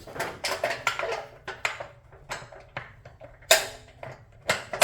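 A pin being worked into the metal bracket of a garage-door hurricane brace: a quick series of metallic clinks and knocks, with a louder clank near the end that rings on.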